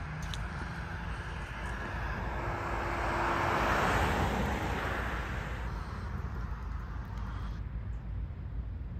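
A car passing close by: its tyre and engine noise swells to a peak about four seconds in, then fades away, over a steady low rumble.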